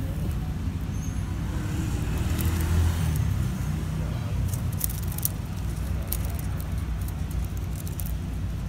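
Steady low rumble of road traffic, swelling as a vehicle passes about two to three seconds in, with scattered light clicks in the second half.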